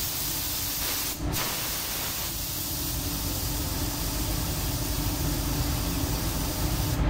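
Compressed-air paint spray gun hissing steadily as a coat is sprayed, with a brief break about a second in when the trigger is let off.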